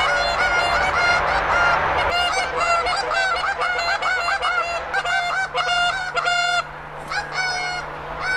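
Geese honking: many short honks in rapid, overlapping succession.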